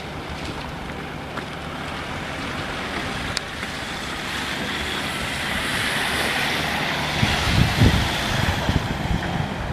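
Excavator-mounted vibratory sheet pile hammer (Daedong DTVH700T on a Volvo 360) running: a steady mechanical din with a low hum. A hiss swells in the middle, and a few heavy low thumps come near the end.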